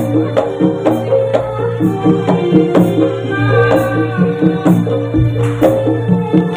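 Javanese gamelan music for a kuda lumping dance: kendang hand drum strokes about twice a second over ringing, sustained tuned metal percussion.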